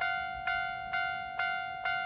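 Railway level crossing warning bell ringing in a steady rhythm, about two strikes a second, each strike a clear ringing tone that fades before the next.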